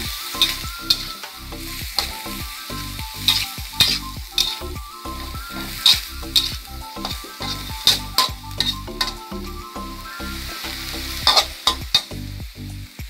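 Metal spatula scraping and clacking against a wok in irregular strokes, with pork and shredded bamboo shoots sizzling as they are stir-fried.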